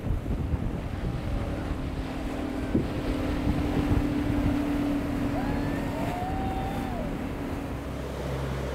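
Single Yamaha 300 V6 outboard on a center-console boat running at speed, a steady drone over the hiss of spray and wind buffeting the microphone. The drone drops away about six seconds in.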